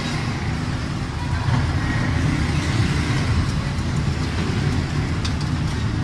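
Steady low background rumble, with a few faint clicks about five seconds in.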